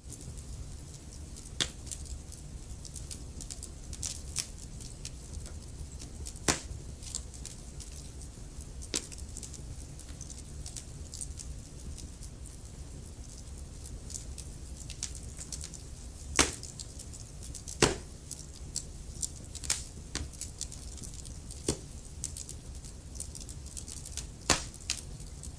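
Wood fire crackling in a fireplace: irregular sharp snaps and pops from the burning logs, a few of them louder, over a low steady rumble of the flames.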